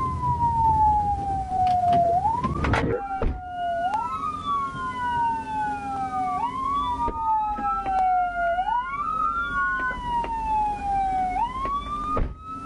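Police car sirens on the wail setting: two sirens cycling out of step, each pitch falling slowly over about two seconds and then sweeping quickly back up. Low road rumble from the patrol car fades out about three seconds in as it comes to a stop.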